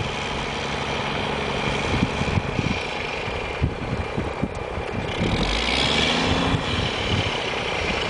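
Snowplow truck's engine running while the truck is stuck in the snow, with a louder surge about five and a half seconds in.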